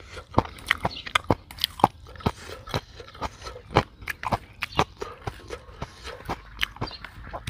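Close-miked chewing of green papaya salad: wet, crunchy mouth clicks and smacks, irregular, a few each second.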